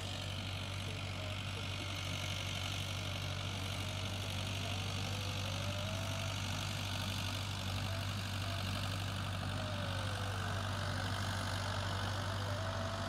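RC transmitter's audio variometer giving a faint tone that wanders slowly up and down in pitch as the glider's climb or sink rate changes. A steady low hum and hiss run underneath.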